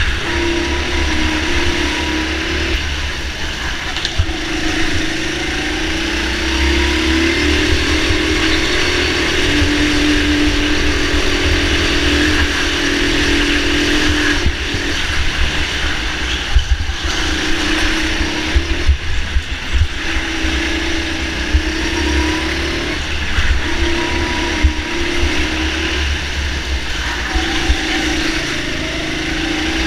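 A go-kart being driven at speed: its motor note rises and falls with the throttle and drops away briefly several times through the corners, over a heavy low rumble.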